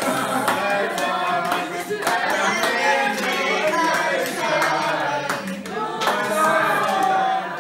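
A group of voices singing together, with music.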